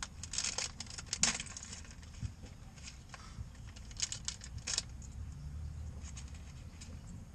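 Small clicks and rattles of hands handling headlight bulb and wiring parts, in clusters near the start and again about four seconds in, over a low steady hum.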